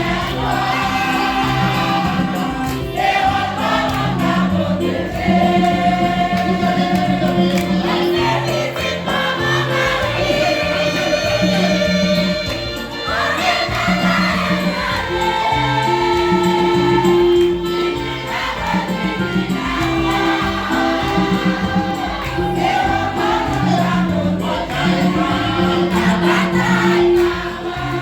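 Church choir singing with instrumental accompaniment, held bass notes stepping in time beneath the voices.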